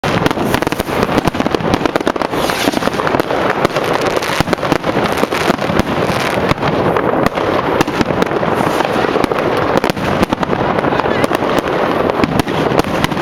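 Dense barrage of privately launched fireworks: rockets and shells going off in quick succession, with many overlapping bangs and crackles and no pause.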